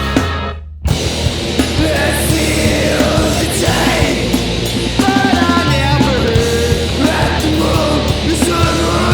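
Live heavy punk-rock band playing loud, with yelled vocals. About half a second in the band stops briefly, leaving only a low bass note, then crashes back in at full volume.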